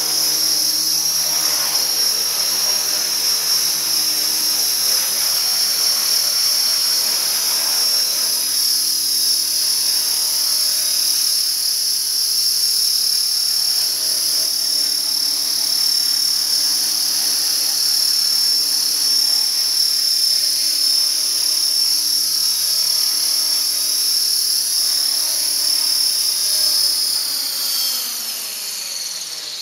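Small electric RC helicopter hovering: a steady, high-pitched whine of the motor and gears over the rotor noise. Near the end it sets down and the whine falls in pitch and fades as the rotor spools down.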